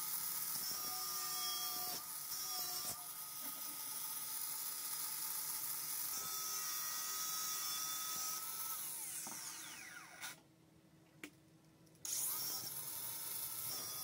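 Cordless angle grinder with a thin cutting disc running and cutting through the steel wires of a fan guard: a steady motor whine with a harsh grinding hiss. About nine seconds in it winds down, falling in pitch, and after a short pause it starts up again about twelve seconds in.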